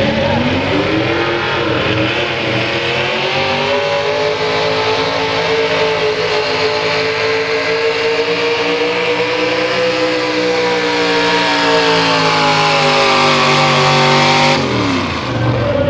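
Square-body Chevrolet pulling truck's engine at full throttle under heavy load as it drags a weight-transfer sled. The revs climb at the launch and hold high with slow swells, then drop sharply near the end as the throttle is lifted.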